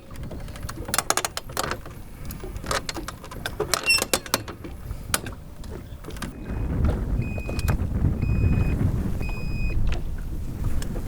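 Scattered clicks and knocks, then from about halfway a low rumble with four short high electronic beeps about a second apart, as the boat's electric motor dies on flat batteries.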